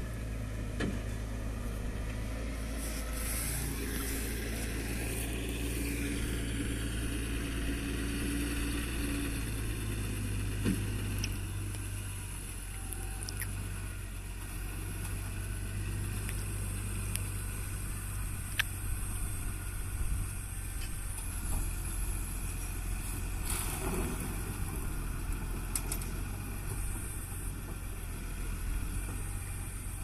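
Case Puma 195 CVX tractor's diesel engine running steadily as it tows a Grimme SE 150/170-60 two-row potato harvester up alongside a trailer: a steady low hum with a few faint clicks.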